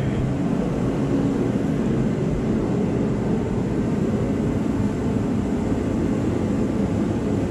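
A fan-type machine droning steadily: an even whoosh with a low hum underneath.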